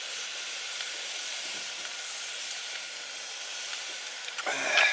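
Portable gas canister stove burner hissing steadily under a pot of soup. A short voice-like sound cuts in near the end.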